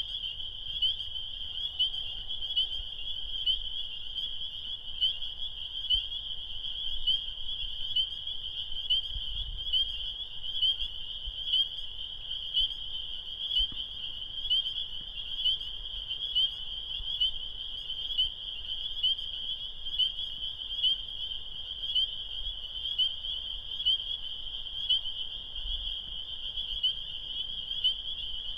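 A chorus of spring peepers (Pseudacris crucifer) calling: a dense, steady mass of high peeps, with louder single peeps from nearer frogs standing out about once a second.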